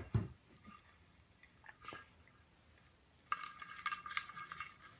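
A low thump at the very start, then, from a little past the middle, a hand rummaging through folded paper slips in a plastic bowl: a dense crackling rustle with small clicks.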